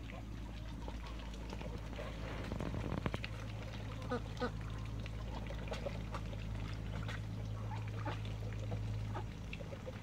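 Domestic ducks dabbling in a shallow muddy puddle, giving short quacks and calls from about four seconds in, over water trickling and a steady low hum.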